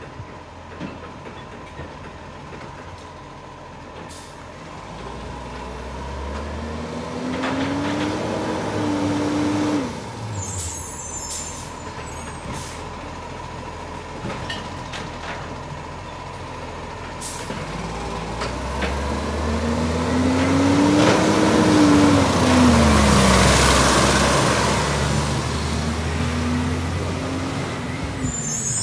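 Iveco side-loader garbage truck's diesel engine revving up and easing off twice, loudest about two-thirds of the way in, with short hisses of air from its air brakes.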